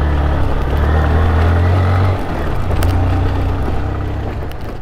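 Honda CG single-cylinder motorcycle engine running steadily on a gravel climb, heard from the bike with road noise over it. About two seconds in the engine note drops and gets quieter, then the sound slowly weakens.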